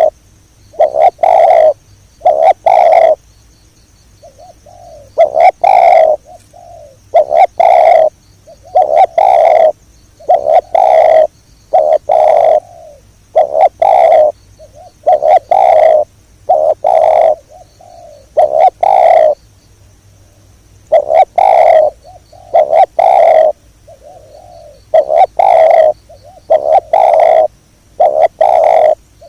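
Spotted dove (tekukur) cooing loudly, phrase after phrase: short groups of two or three low coo notes with brief pauses between them.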